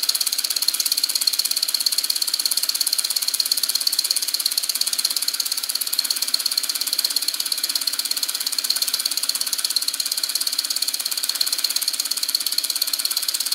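Homemade two-cylinder 12-volt solenoid engine running at a steady speed: a rapid, even clicking clatter from its solenoids, push rods and roller rockers.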